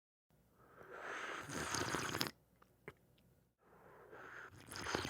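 Two long slurping sips of hot liquid from a mug, air drawn in noisily with the liquid, the first about a second in and the second near the end, with a faint click between them.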